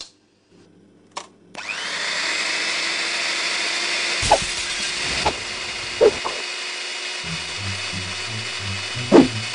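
A switch clicks, and about one and a half seconds in an electric stick blender starts up, its motor running steadily with a high whine. Several sharp knocks sound over the motor, the loudest near the end.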